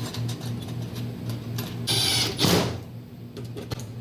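Rapid light mechanical clicks and handling noise over a steady low hum, with one louder rustle about two seconds in.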